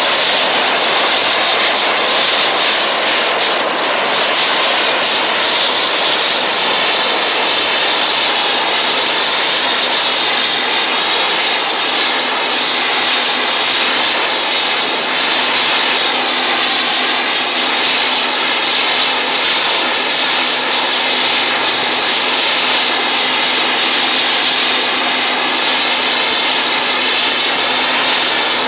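UH-1Y Venom helicopter running on the ground, its twin turboshaft engines and turning rotors making a steady, loud turbine whine. A low hum joins about twelve seconds in.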